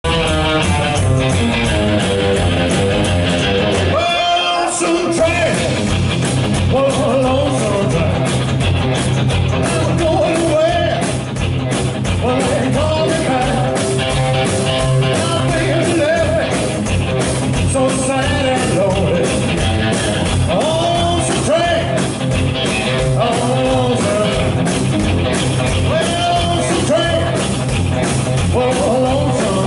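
Live rockabilly band playing: a singer over a hollow-body electric guitar, upright double bass and drums. The bass and drums drop out briefly about four seconds in.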